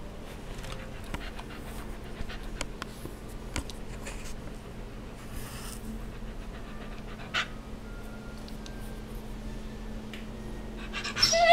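Dog panting steadily. Near the end comes a short, loud cry that rises in pitch.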